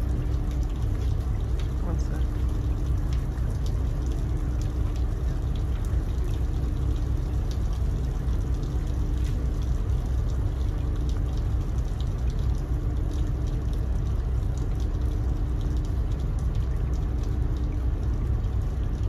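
Steady low rumble of a large cruise ship's machinery under the deck, with a faint hum that comes and goes every couple of seconds.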